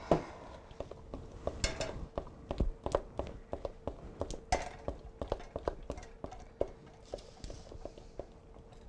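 A spoon stirring thick brownie batter in a mixing bowl, knocking and scraping against the bowl's sides in short irregular clicks, several a second.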